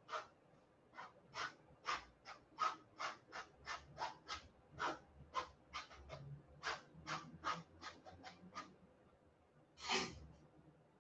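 Paintbrush dabbing and scraping against a painting canvas in faint, short strokes, two to three a second, then one louder scrape or knock about ten seconds in.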